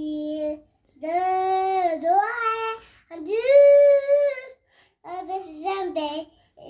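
A child singing solo, unaccompanied: long held notes in short phrases with brief pauses between them, then quicker, shorter notes near the end.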